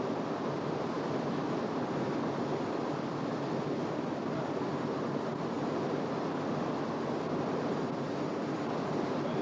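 Steady rushing noise of wind and water at an even level, with no distinct events.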